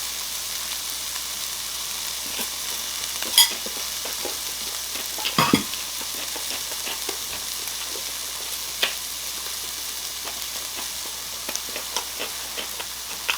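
Pork belly and other meat sizzling steadily on a grill, the fat crackling, with a few sharp clicks, the loudest about five and a half seconds in.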